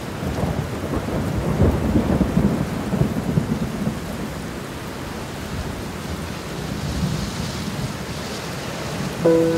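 Heavy rain and rushing floodwater: a loud, dense, low rumble that surges unevenly for the first few seconds and then settles into a steadier rush. Just before the end a chord of several held tones starts suddenly.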